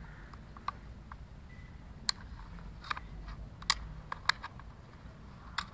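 Wooden sliding puzzle toy clicking and knocking as a dog noses and paws at the slider, about half a dozen sharp, irregular clicks a second or so apart.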